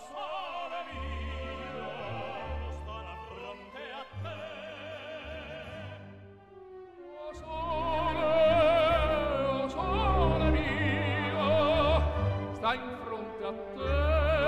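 Operatic tenor singing with wide vibrato over an orchestra. The music dips quieter about halfway through, then swells louder with long held notes.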